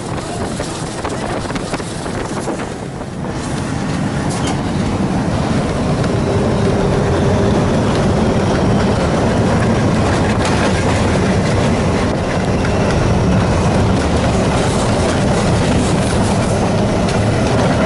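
WDG-3A Alco diesel locomotive running under power, its 16-cylinder ALCO 251 engine chugging over the noise of the train's wheels on the rails. The sound grows louder about four to six seconds in and then holds steady.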